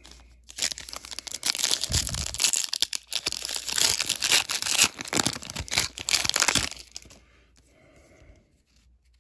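A sports card pack wrapper being torn open and crinkled by hand: dense crackling from about half a second in until about seven seconds in, then it stops.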